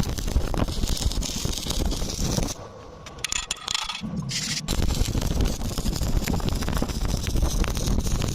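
Stick welding arc crackling and sizzling. It stops for about two seconds a few seconds in, then starts again.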